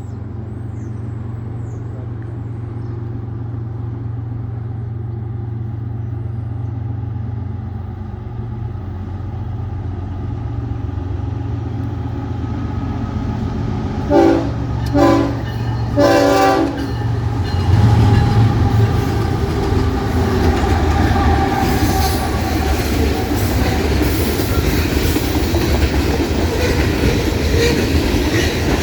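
GE ES44AH diesel locomotives running under load, their low drone growing louder as the train approaches; about halfway a K5HL horn sounds three blasts, two short and a longer third. Then the wheels of the fully loaded 200-car coal train clatter over the rails as the heavy hoppers pass.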